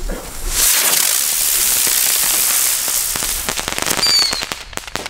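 Klasek Whistling Airplane firework igniting with a loud hiss about a second in as it takes off. Over the last two seconds come a run of crackling pops from its effect burst and a brief, slightly falling whistle.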